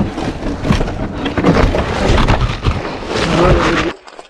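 Mountain bike clattering over rock and dirt trail: a dense, irregular run of knocks, rattles and tyre scraping that stops suddenly near the end.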